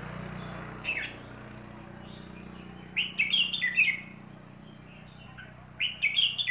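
Caged songbird singing short phrases of quick, bright, falling notes: a brief one about a second in, a longer run near the middle and another starting near the end, over a steady low hum.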